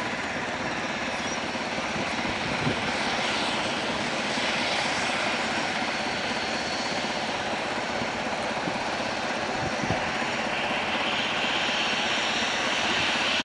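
Embraer EMB-505 Phenom 300 business jet taxiing past, its two rear-mounted turbofan engines running at low power with a steady rushing hiss and whine that grows brighter over the last few seconds.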